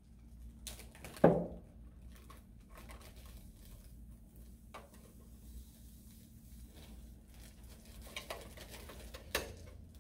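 Sugar being poured from a plastic bag into a glass mixing bowl, a faint patter, with a sharp knock about a second in and a smaller one near the end.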